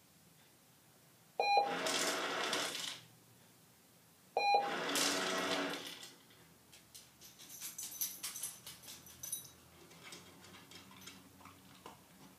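Two loud noisy bursts, each about a second and a half long with a sharp start, about three seconds apart; then a dog's collar tags clink and jingle irregularly as the dog moves about.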